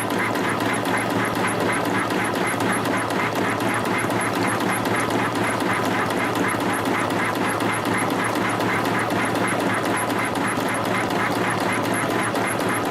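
CNC compression-spring coiling machine running steadily, coiling 1.4 mm wire into variable-diameter springs: an even, rhythmic machine clatter of about four cycles a second, one spring per cycle at 250 springs a minute, over a steady whine.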